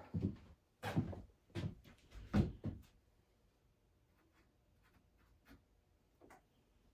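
A few light knocks and clunks in the first three seconds: a pepperball launcher being put down and gear handled on a wooden workbench.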